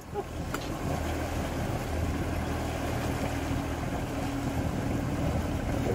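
Motorboat engine running steadily, a low even hum with a steady hiss over it, while the boat trolls.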